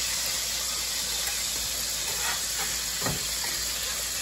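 Bison patties sizzling steadily in hot fat in a cast-iron skillet, with a few light knocks of a metal spatula against the pan, the clearest about three seconds in.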